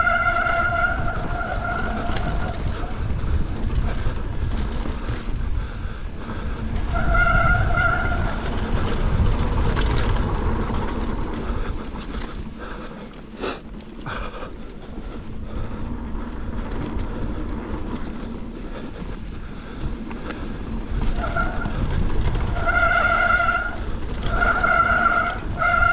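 Mountain bike descending a dirt trail: a steady rumble of wind and tyre noise with rattling. The disc brakes squeal in several bursts of a steady high tone, once at the start, once about a third of the way in, and several times near the end.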